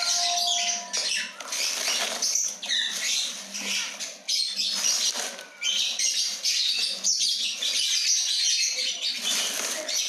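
Printed plastic sack rustling and crinkling in uneven bursts as dead lovebirds are shaken out of it onto a tiled floor.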